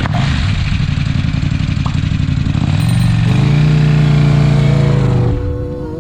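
Motorcycle engine running and revving up about three seconds in, holding high, then falling away shortly before the end.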